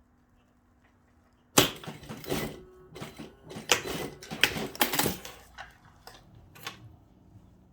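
A flurry of sharp clicks and rattles starting about a second and a half in and lasting a few seconds, then a few scattered clicks: a heavy-duty zip and its slider being handled and worked together.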